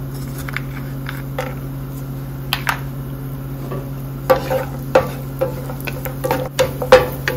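Cashews frying in a little oil in a nonstick pan, with a few scattered pops. From about four seconds in, a spatula stirs and scrapes them around the pan in quick strokes. A steady low hum runs underneath.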